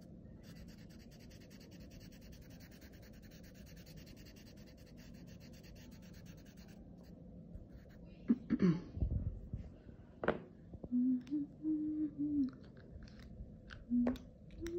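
Black felt-tip marker scratching on paper in fast, short strokes as a shape is coloured in, faint, for about the first seven seconds. In the second half come a couple of handling knocks and a few short hummed notes.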